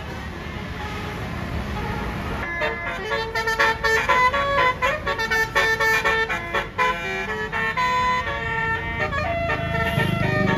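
Bus telolet horn, a basuri multi-trumpet air horn, playing a melody of short stepped notes that starts about two seconds in over street noise. A low rumble grows near the end.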